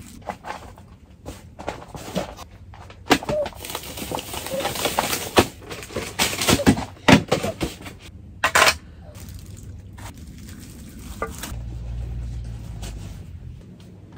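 Rustling and clattering as things are handled at a table: sharp clicks and knocks of dishes and utensils with crinkling plastic, busiest in the middle, then a low rumble near the end.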